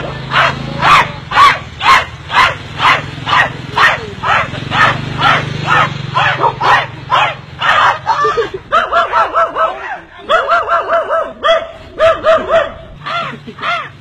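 Dog barking over and over in a steady rhythm, switching to quicker, rapid yaps about eight seconds in.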